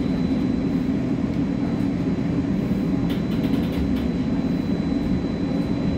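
Steady engine and road noise heard from inside a city bus driving along a road, with a faint high whine throughout and a few light rattles about three seconds in.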